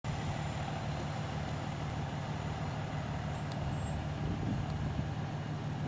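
Twin 250 hp outboard motors idling steadily, an even low hum.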